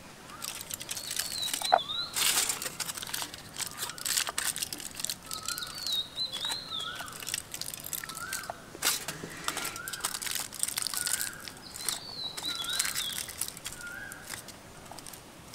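Aluminium foil crinkling in quick bursts as it is pressed and crimped around the rims of glass tumblers. A bird repeats a short rising call many times in the background.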